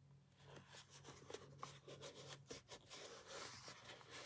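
Near silence: faint rustling and rubbing of cardstock being pressed and lined up by hand, with scattered small ticks, over a low steady hum.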